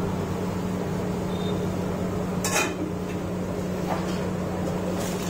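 A single sharp metal clank of a utensil against the iron frying kadai about two and a half seconds in, with a lighter tick a little later. Underneath are samosas deep-frying in the oil and a steady low hum.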